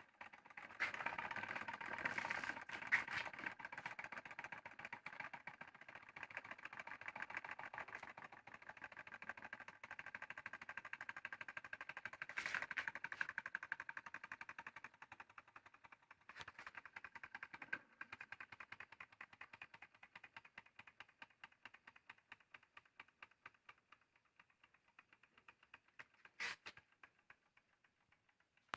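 Home-made tin-can gamma-type Stirling engine running, its mechanism making a rapid, fine ticking rattle that grows gradually fainter, with a sharper click near the end.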